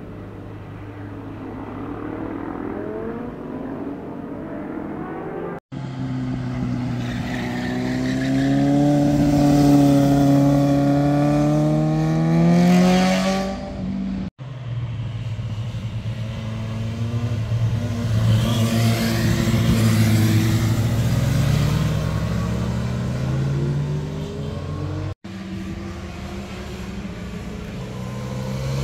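Motorcycles riding past one after another in separate cut-together clips. Each engine's note climbs in pitch as the bike accelerates and swells loudest as it passes close, and each clip cuts off suddenly before the next.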